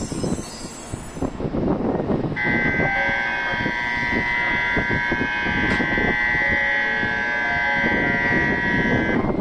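A station departure bell rings steadily for about seven seconds, then stops near the end, signalling that the Shinkansen is about to depart. Train and platform noise runs underneath.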